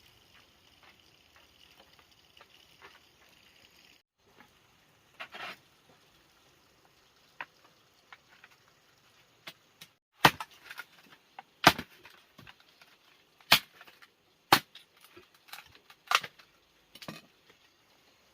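A series of six sharp snaps or knocks, irregularly spaced about a second apart through the second half, after faint light ticking.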